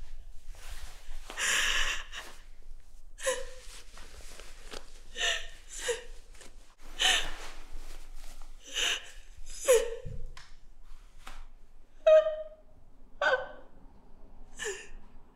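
A woman crying hard: about ten sharp, gasping sobs, one every second or so, each a short catch of the voice and breath.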